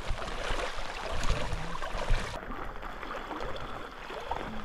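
People wading through thigh-deep flowing stream water, with irregular splashes and sloshing from their legs over the steady rush of the water. About halfway through, the sound turns duller.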